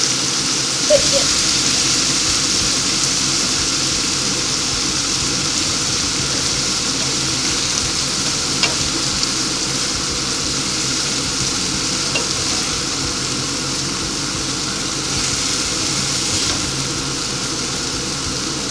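Beef steak strips frying in a hot pan with tomatoes, a steady sizzle, with a few light clicks of the stirring utensil against the pan.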